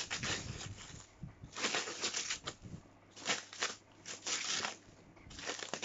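Clear plastic stretch wrap crinkling and rustling as it is pulled and torn off a package by hand, in about five short spells of crackle.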